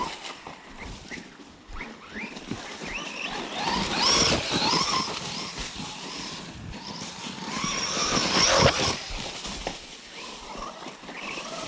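Small cheap Chinese RC car being driven, its electric motor whining up and down in pitch as it accelerates and slows, with two louder bursts of speed about four seconds in and again near eight seconds, over tyre and gravel noise.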